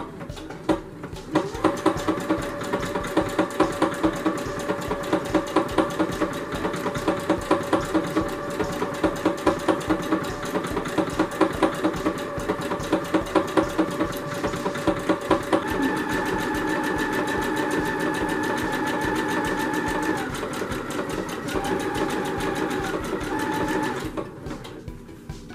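Singer Confidence electronic sewing machine stitching a decorative stitch: a fast, even run of needle strokes with a pulsing rhythm. After about sixteen seconds it runs more smoothly with a steady motor whine, and it stops just before the end.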